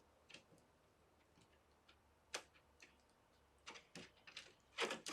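Faint, scattered plastic clicks and ticks of a small toy tool being turned to unbolt a plastic Treasure X Robots figure, with the sharpest click about halfway through and a few quick ones near the end.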